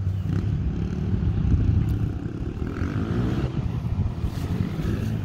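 Small 125cc dirt bike's single-cylinder engine running, with a rev that rises and falls around three seconds in.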